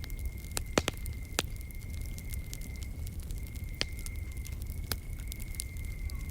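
Wood fire crackling, with scattered sharp pops and a few louder snaps in the first second and a half. Beneath it runs a steady high-pitched insect trill and a low rumble.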